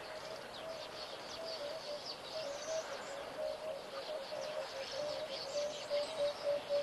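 Wild birdsong: a dove cooing in a long series of repeated low notes that come faster near the end, with smaller birds chirping high above it.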